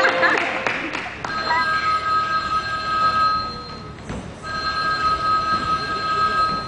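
Two long, steady electronic ringing tones, each about two and a half seconds, with a short break between them.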